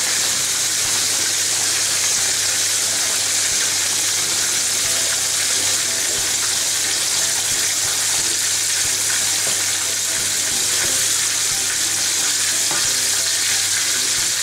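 A pot of vegetable soup boiling on the hob, a constant bubbling hiss, while a wooden spoon stirs potato flakes into it. A low steady hum sits underneath.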